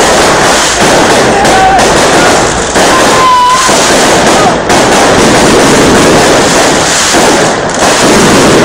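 Aerial fireworks display going off in a dense, very loud barrage of bangs and crackles, with a couple of brief whistling tones in the first half.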